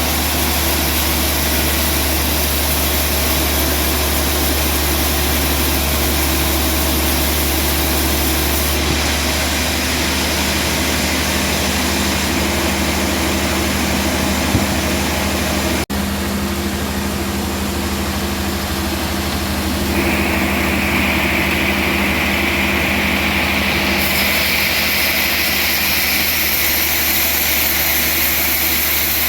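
Band sawmill's engine running steadily with a low drone. It breaks off for a moment about halfway through, and a higher steady whine joins a few seconds later.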